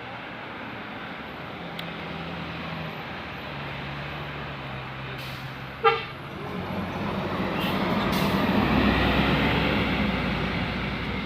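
Bus engine running and growing louder as the bus approaches, with a single short horn toot about six seconds in.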